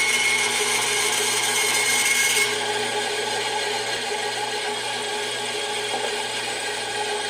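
Micro-Mark benchtop bandsaw running steadily as it cuts through a thin 18 gauge copper sheet, a steady motor hum under a high, hissing whine. The highest hiss drops away and the sound eases slightly about two and a half seconds in.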